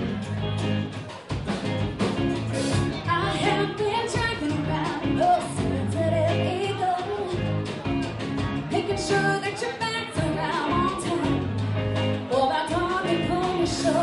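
Live band playing: a woman sings lead over electric guitar and a drum kit.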